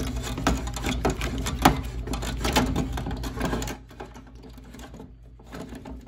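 Metal hex keys of a folding hex key set rattling and clicking as one key is turned in the reset lock of a Fire-Lite BG-10 pull station. A quick, uneven run of clicks thins out to a few about two-thirds of the way in, and a low hum underneath stops at the same moment.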